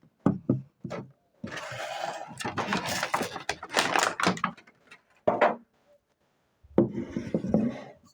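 Perfume box and packaging being handled: rustling and sliding twice, with several light knocks and clicks in between.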